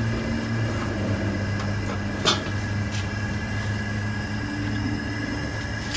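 Steady low mechanical hum with one sharp click a little over two seconds in and a fainter click about a second later.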